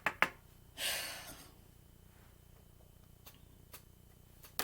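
Tarot cards being handled: a couple of sharp clicks at the start, a short hissing rustle about a second in, then a few faint taps.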